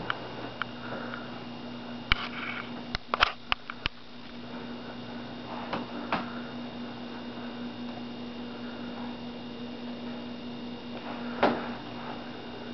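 Steady electrical room hum with a few sharp clicks and taps: a quick cluster about two to four seconds in, and one louder click near the end.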